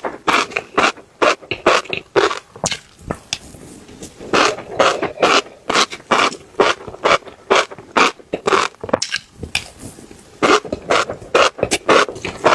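Close-miked wet chewing and mouth sounds of fish roe being eaten, a rhythmic run of smacks and squelches about three or four a second, easing off briefly around three seconds in.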